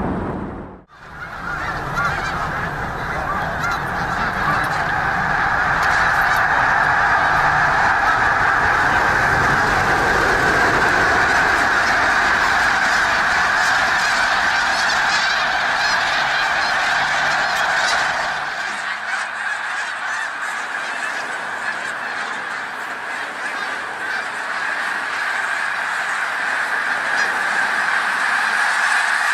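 A large flock of birds calling all at once, a dense, continuous mass of calls that starts after a brief drop-out near the start; the low end of the sound falls away about 18 seconds in.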